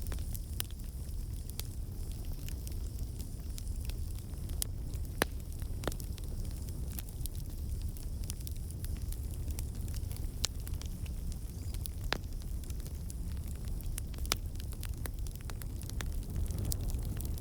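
Campfire burning, with a steady low rumble under frequent irregular crackles and sharp pops.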